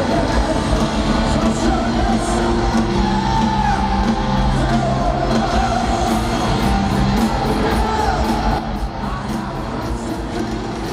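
Rock band playing live with electric guitars and drums, heard from within the audience, with voices singing and yelling along.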